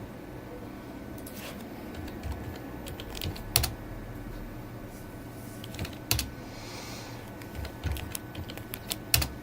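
Scattered clicks and taps of a computer keyboard and mouse, with a few sharper ones about three and a half, six and nine seconds in, over a steady low hum.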